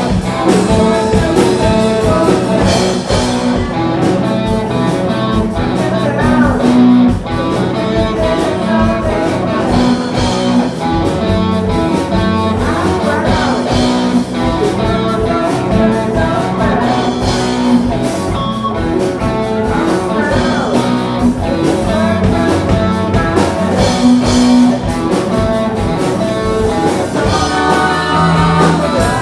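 Live rock band playing through amplifiers: electric guitars over bass and drums, with singing joining near the end.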